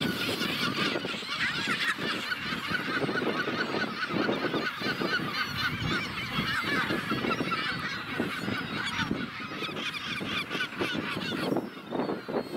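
A Magellanic penguin colony calling: many overlapping calls blend into a steady chorus that thins slightly near the end.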